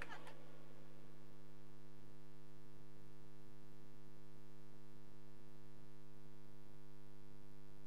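Steady electrical mains hum from the sound system, a fixed low buzz with a few higher overtones that does not change.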